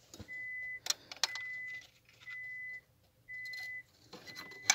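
An electronic beeper sounding one steady high tone about once a second, each beep lasting about half a second, with two sharp clicks about a second in.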